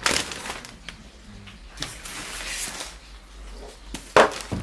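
Clear plastic wrapping rustling and crinkling in bursts as it is pulled off a washing machine, with one sharp noise near the end that is the loudest sound.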